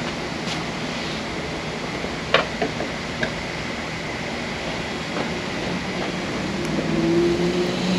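Steady hiss and hum, with one sharp click about two and a half seconds in and a low hum that rises near the end.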